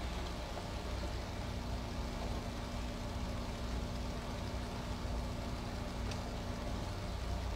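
Steady low background hum with a faint steady tone that stops near the end, and one small click about six seconds in.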